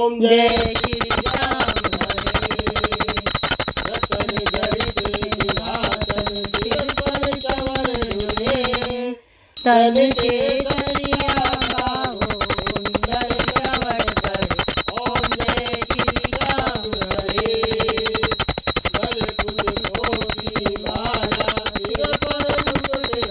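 A bell ringing rapidly and without pause, over music with a wavering melody, during puja after the lamps are lit. The sound breaks off for a moment a little before halfway, then carries on.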